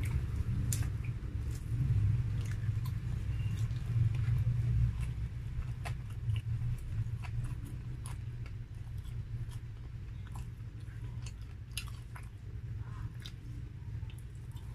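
Close-up chewing and biting of grilled chicken, with many small scattered mouth clicks. It is louder for the first five seconds or so, then softer.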